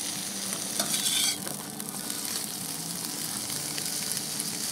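Cubed pork fat sizzling and crackling steadily as it renders down in a kazan, with a louder burst of hissing about a second in.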